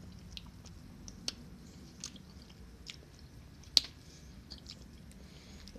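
Mouth sounds of a person tasting a spoonful of hot sauce: lip smacks and wet mouth clicks, a handful of short sharp ticks with the loudest a little past the middle, over a faint low hum.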